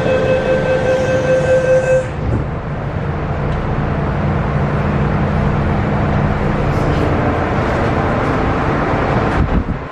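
MTR M-train's door-closing warning tone sounding steadily until about two seconds in as the doors shut. The train's rumble follows as it pulls away, with the traction motors humming for a few seconds.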